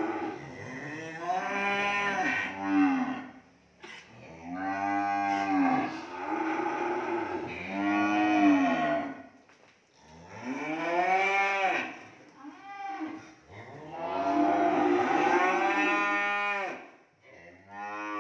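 Cattle mooing: a string of about seven long moos, one after another with short breaks, each call rising and then falling in pitch; one call near the middle is much shorter.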